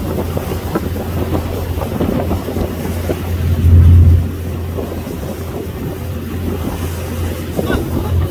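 Passenger boat under way at sea: a steady low engine rumble with wind buffeting the microphone. The loudest moment is a stronger gust about halfway through.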